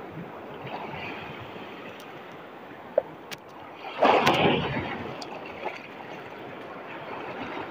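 Shallow surf washing around the wader, with a louder surge of a wave breaking and rushing in about four seconds in. A single short click a little before it.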